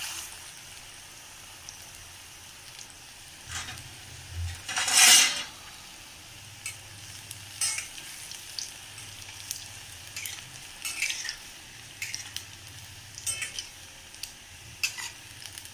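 Lentil-batter koftas deep-frying in hot oil in a steel kadhai: a steady sizzle, with a metal spoon stirring and tapping against the pan now and then. A loud hissing burst comes about five seconds in.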